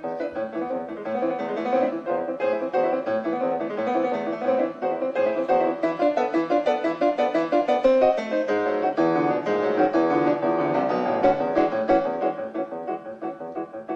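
Background piano music: a lively solo piano piece of quick, closely packed notes.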